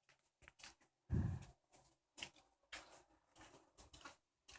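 Faint rustling and small handling clicks, with one louder soft thump a little over a second in.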